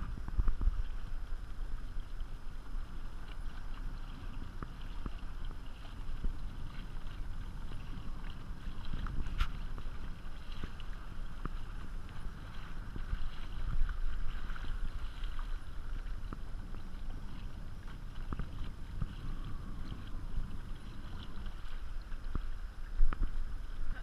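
Water lapping and sloshing against the plastic hull of a sit-on-top kayak, with wind buffeting the microphone as a low rumble. Small knocks come now and then, one sharp click about nine and a half seconds in.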